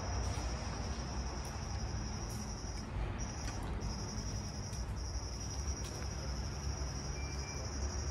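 Crickets trilling: a steady high-pitched chirring with a few brief breaks, over a low steady rumble.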